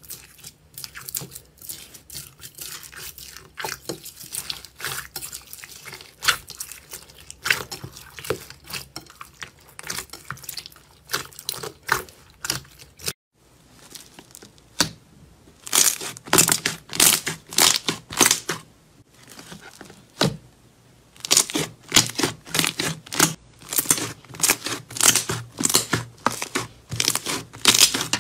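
Fingers pressing into golden slime packed with small jelly beads, making a run of soft crackles. After a short break, hands kneading and squeezing a glossy blue slime, with louder, denser crackling pops.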